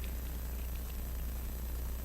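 Steady low electrical hum with a faint hiss, and a few faint small clicks in the first second.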